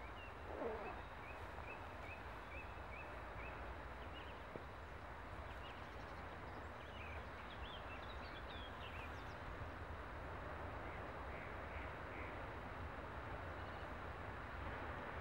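Small birds chirping in short repeated calls, with a louder harsh call about half a second in, over the steady low rumble of a distant freight train approaching slowly.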